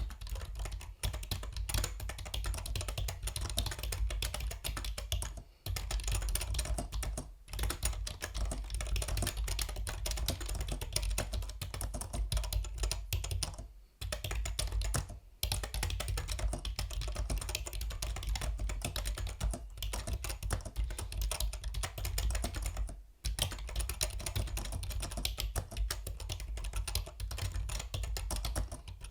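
Continuous fast typing on a Yunzii B307 mechanical keyboard: a dense stream of key clicks, broken by brief pauses about five and a half, seven and a half, fourteen, fifteen and twenty-three seconds in.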